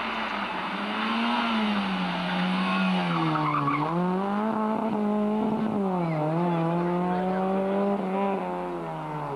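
Rally car engine revving hard on a stage, its pitch rising and dropping sharply a few times with lifts and gear changes, getting louder and then fading as it passes.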